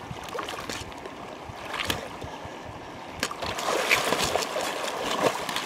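Icy water sloshing and splashing in a hole in pond ice as a person hauls himself out, with short knocks and scrapes of ski poles dug into the ice. It gets louder about three seconds in as his body comes up onto the ice.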